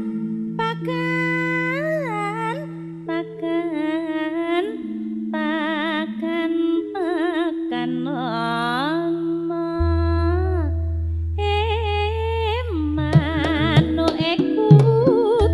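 A female Javanese sindhen sings a slow, free-rhythm jineman line in Javanese, with wavy vibrato and sliding ornaments, over long held accompanying tones. About ten seconds in a deep held bass tone joins. About thirteen seconds in the band comes in with struck percussion as the beat picks up.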